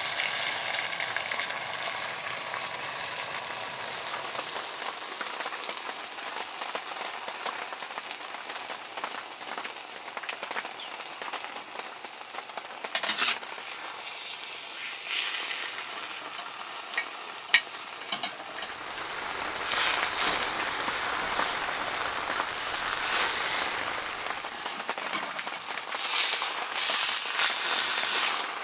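Food sizzling in a hot pan, a steady hiss that swells and fades several times, with a brief sharp tick about two thirds of the way through.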